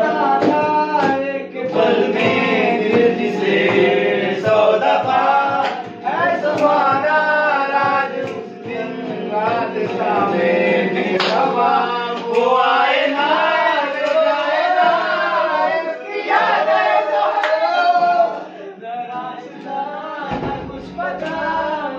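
A group of young men singing together to a strummed acoustic guitar, with hand taps on a wooden board keeping the beat. The singing gets quieter for the last few seconds.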